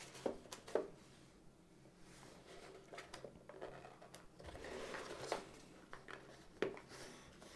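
Corrugated cardboard box being handled: a couple of sharp taps near the start, a soft stretch of scraping and rustling as fingers work at its edge, and another tap near the end.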